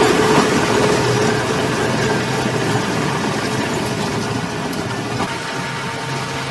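Heavy construction machinery's diesel engine running steadily, gradually getting quieter.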